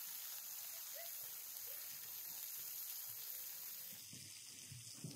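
Tomato slices and meat sizzling on a hot stone slab over a fire, a steady hiss that stops about four seconds in.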